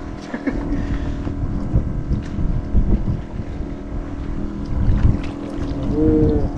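Wind buffeting the microphone over a steady motor hum aboard a small fishing boat.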